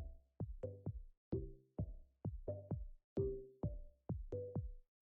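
Electronic background music with a drum-machine beat, drum hits about every half second under low synth notes.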